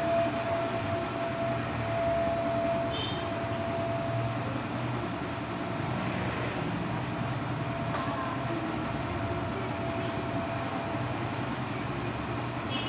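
A steady low rumble with a thin, steady hum running through it and a few faint short chirps.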